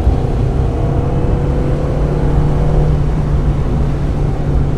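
1995 Mazda Miata's 1.8-litre four-cylinder engine running under load on track at a fairly steady pitch, heard from inside the car.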